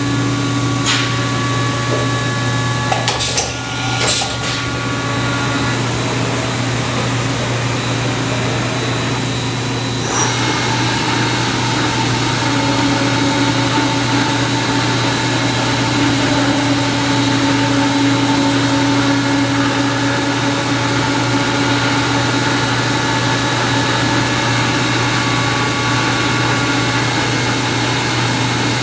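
CNC vertical machining center running under power: a steady mechanical hum with several steady whines on top. A few clicks come about three to four seconds in, and the sound shifts at about ten seconds in as another drive or pump changes.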